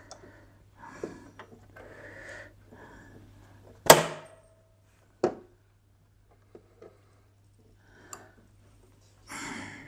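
Rustling of thread and fingers, with plastic and metal clicks from handling a sewing machine as it is threaded by hand: one sharp click about four seconds in and a second one about a second later, over a faint steady hum.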